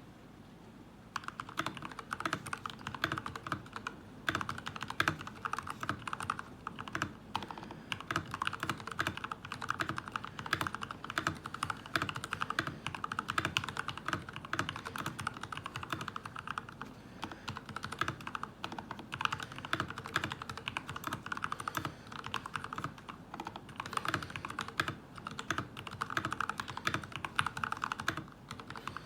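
Fast, continuous typing on a GK61 hotswap mechanical keyboard with lubed Gateron Yellow linear switches and Shirokawa keycaps, a dense run of keystrokes that begins about a second in.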